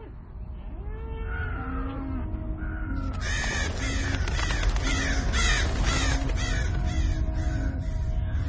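A flock of crows cawing, their harsh calls growing into a dense clamour about three seconds in, over a deep low rumble that steadily grows louder.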